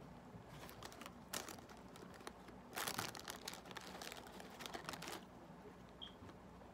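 Clear plastic bag of fries crinkling as a hand rummages in it and pulls fries out: a few short crinkles in the first second and a half, then about two and a half seconds of continuous crinkling in the middle.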